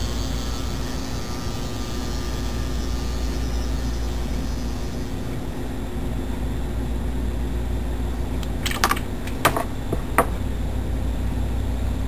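Low-voltage, high-current transformer rebuilt from a microwave-oven transformer, humming steadily under load as it drives heavy current through a coil of thin wire until the wire glows red-hot. A hiss fades out over the first few seconds, and a few sharp clicks come about nine and ten seconds in.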